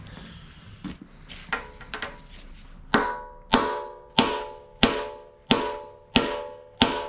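Hammer blows on steel, driving a bushing into its bore: a few light taps, then from about three seconds in a steady run of hard strikes, roughly three every two seconds, each with a short metallic ring.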